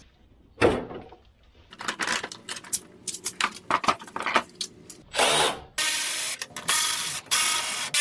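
A cordless drill-driver runs in several short bursts in the second half, driving screws on the car's front-end panels. Before that, parts and tools are handled, giving a knock and scattered clicks.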